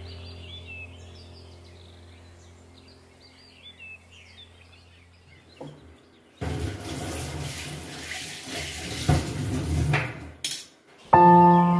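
A steel spoon scraping and scooping dry, crumbly dal filling in a steel plate: a rustling, scratchy noise with a few sharp knocks, starting about six seconds in and stopping about five seconds later. Soft background music fades out before it, and a new music track with long held tones starts near the end.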